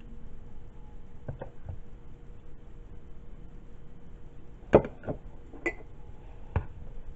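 Wooden spoon knocking against a mixing bowl and a small ceramic baking dish while scooping thick pot pie filling: a few scattered taps, the loudest a sharp knock about two-thirds of the way through.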